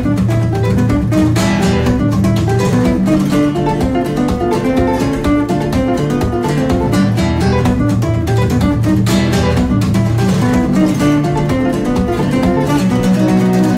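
Background music: acoustic guitar playing a steady stream of quick plucked notes.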